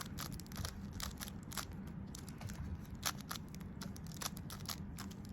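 Rubik's cube layers being turned one-handed in quick succession: a rapid, uneven run of plastic clicks while a last-layer permutation (PLL) algorithm is performed.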